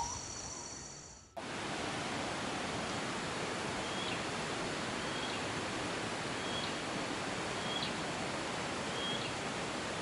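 Steady, even hiss of outdoor forest ambience, starting abruptly about a second in. A short, faint, high call, most likely a bird, repeats six times at roughly one-second intervals.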